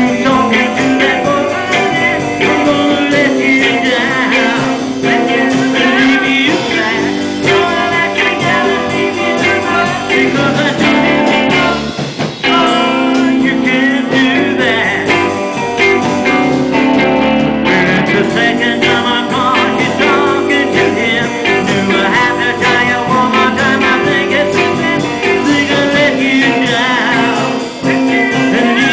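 Live rock band playing: electric guitars with a singer's voice over them, loud and continuous, with a brief drop in loudness about twelve seconds in.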